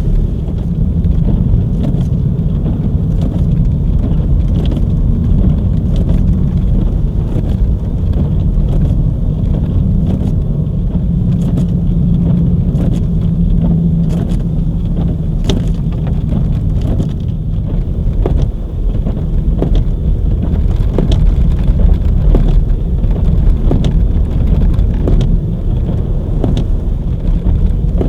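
Car driving on a snow-covered road, heard from inside the cabin: a steady low rumble of engine and tyres, with frequent short clicks and knocks.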